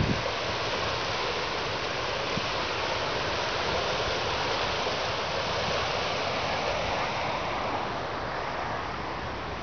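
Dam outflow stream rushing over rocks in white water, a steady noise that eases a little near the end.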